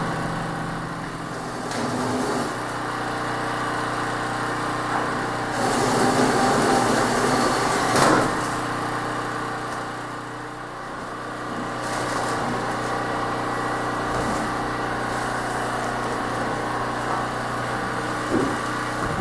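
A machine running steadily with a hum of several held tones. A few knocks and clunks come over it, the loudest about eight seconds in.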